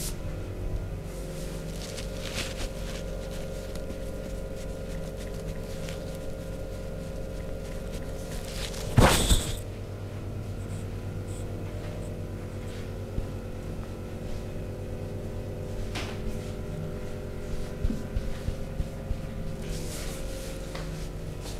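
Chair massage: hands working on a seated person's body, with faint scattered taps and rubbing over a steady low hum. One loud, sudden noise lasts about half a second, about nine seconds in.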